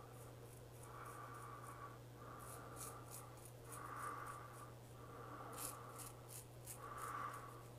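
Small Klas Törnblom straight razor, about 4/8, scraping through lathered two-week stubble in a series of short strokes, with a crisp crackle as the whiskers are cut.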